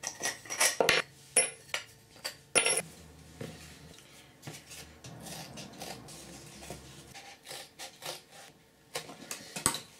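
A metal pivot bar and a drilled wooden block being handled: a run of sharp metallic clinks and knocks in the first three seconds, then quieter rubbing and handling. Near the end, scissors snip into a thin black sheet.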